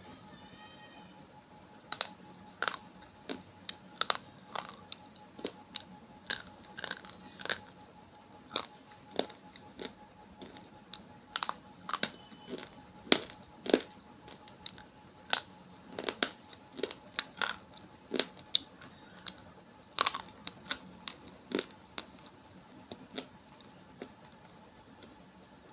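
Crunching: a long string of sharp, irregular crunches, about one or two a second, starting about two seconds in and thinning out near the end.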